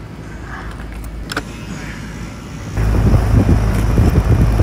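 Outdoor air-conditioning condenser unit of an almost 30-year-old system running close up: a loud, steady low hum with rough air noise on top that comes in abruptly about three seconds in. Before that, a quieter rumble and a single click.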